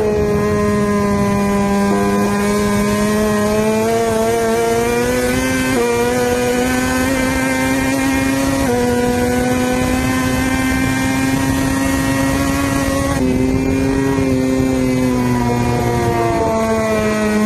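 Sport motorcycle engine running steadily at high revs at highway speed, its pitch stepping up or down slightly a few times, over wind and road noise.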